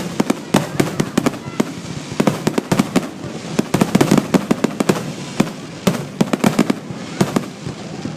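Grand finale fireworks barrage: aerial shells bursting in rapid succession, several loud bangs and crackling reports a second with no let-up.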